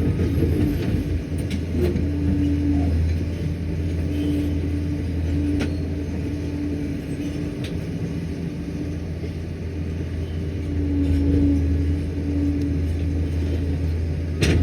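Liebherr 746 crawler dozer's diesel engine running under load, a steady low drone that swells a little about three-quarters of the way through. A few faint clicks.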